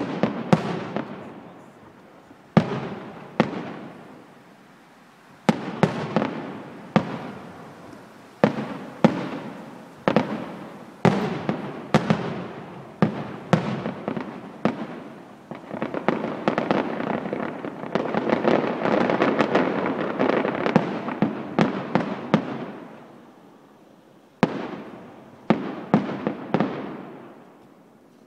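Aerial firework shells bursting one after another, each sharp bang trailing off in a rumbling echo. About halfway through the bangs come thick and fast, with a dense crackle between them, before thinning out again near the end.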